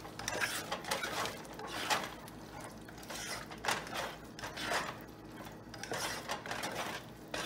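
A plastic spoon stirring a thick mushroom and green pea curry in a saucepan, scraping and squelching against the pan in repeated strokes, about one a second.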